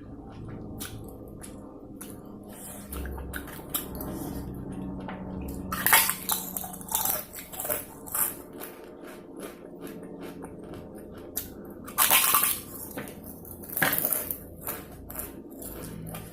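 Close-miked eating sounds of a person chewing biryani and chicken curry: wet mouth clicks and squishing throughout, with two louder noisy bursts about six and twelve seconds in.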